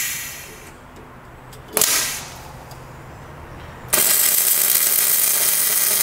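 MIG welding arc: after two short bursts of hiss, the arc strikes about four seconds in and runs steadily, laying weld into the worn keyway of a Bobcat broom's drive shaft to build it up.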